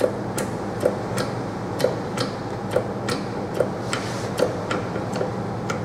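Hand pump of an ELE point load tester being worked stroke by stroke, giving sharp clicks about twice a second as load builds on a rock specimen. A steady low hum runs underneath.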